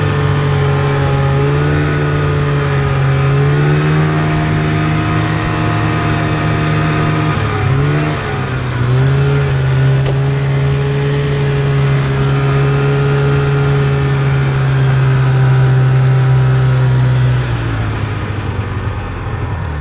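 Polaris snowmobile engine running under way, heard from the rider's seat. Its pitch dips and recovers a few times with the throttle, holds steady through the middle, then falls near the end as the sled slows.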